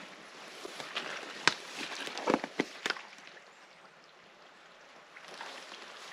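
Footsteps rustling through forest brush and leaves, with a handful of sharp snaps between about one and three seconds in, then quieter rustling.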